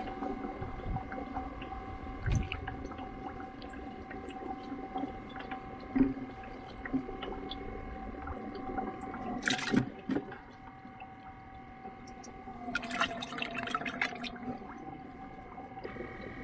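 Water splashing in short bursts, about halfway through and again for a second or so near the end, over a steady high-pitched hum.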